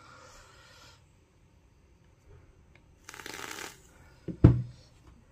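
Hands handling a vape box mod and fitting the metal top cap onto its rebuildable atomizer: a faint rustle, a short scraping rasp about three seconds in, then one sharp thump a second later.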